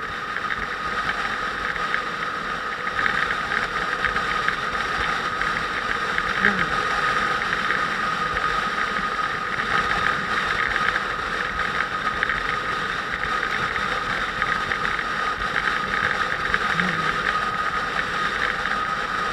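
Motorcycle engine running steadily during a ride.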